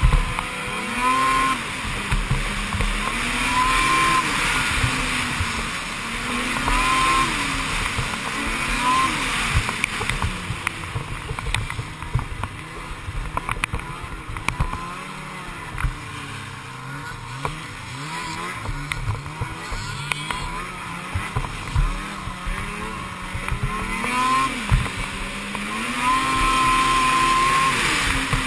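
Snowmobile engine revving up and down again and again as the sled is ridden over snow, each rise and fall lasting a couple of seconds. It runs a little quieter through the middle stretch.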